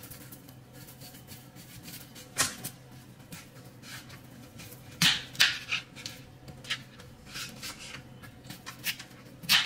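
A dull kitchen knife cutting through raw golden potatoes and knocking on a plastic cutting board: a few sharp chops at uneven intervals, over a steady low hum.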